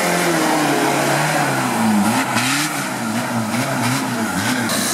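Engine of a tube-frame 4x4 off-road trial special revving up and down over and over as it works over loose rock. The pitch rises and falls several times, with gravel noise from the spinning tyres underneath.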